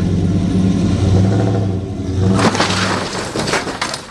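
Truck engine revving under load as it pulls on a tow strap, then from about two seconds in a loud scraping, clattering rush of metal as the RV floor tears loose from the chassis and comes down.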